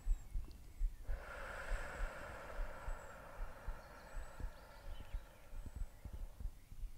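A woman's long, slow exhale through the mouth: a steady breathy hiss that begins about a second in and fades out near the end, the out-breath of a deep yoga breathing exercise. Wind buffets the microphone with low thumps throughout.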